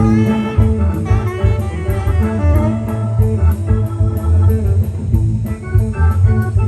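Live blues-rock band playing: electric guitar lines over bass guitar and drum kit, with a steady beat.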